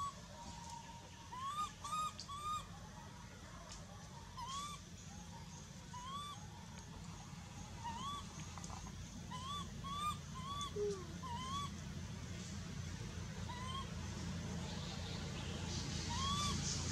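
Baby macaque crying: about a dozen short, high coo calls, each rising and then falling, spaced a second or so apart and sometimes coming two or three in quick succession.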